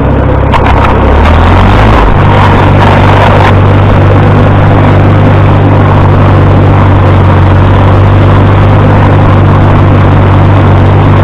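Farmall 300 tractor engine running, picking up speed over the first couple of seconds, then holding a steady, even speed. It runs with no choke on its freshly cleaned carburetor.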